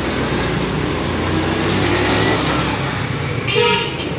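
Motorcycle engine running steadily while riding, with a brief, loud high-pitched tone about three and a half seconds in.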